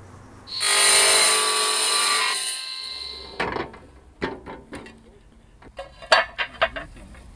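Wet stone saw with a diamond blade cutting through a clay roof tile for about two seconds, then dying away. This is followed by a series of sharp clacks as the cut tiles are handled and stacked.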